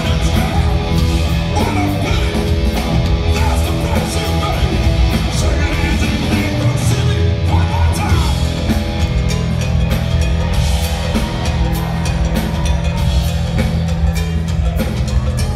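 Rock band playing live: distorted electric guitar, bass guitar and drum kit, with a singer's voice over them, loud.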